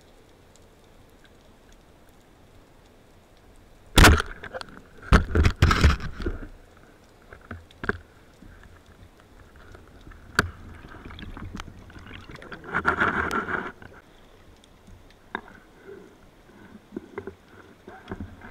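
Underwater sound heard through a camera housing: a sharp knock about four seconds in, followed by a couple of seconds of rushing, sloshing water noise, then another single knock and a second rush of water noise, with small clicks near the end.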